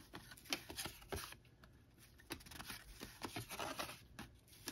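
Baseball cards being handled and flipped through: faint scattered flicks and rubbing of card stock sliding against card stock.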